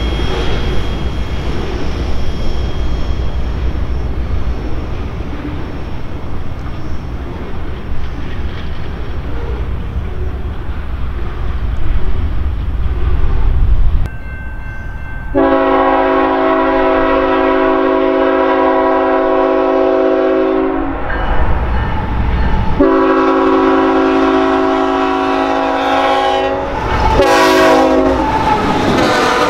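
A train rolling past with a steady low rumble for the first half. After a cut, a freight locomotive's multi-chime air horn sounds two long blasts and a short one, the long-long-short pattern of a grade-crossing signal, over the rumble of the passing train.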